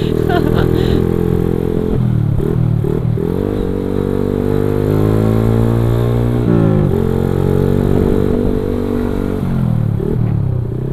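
Motorcycle engine under way, its pitch rising and falling with the throttle several times. It climbs steadily for a couple of seconds, then drops sharply about six and a half seconds in.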